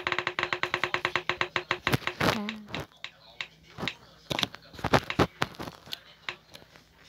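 Spinning prize-wheel app ticking as the wheel passes each slice: rapid clicks that slow and spread out as the wheel coasts to a stop.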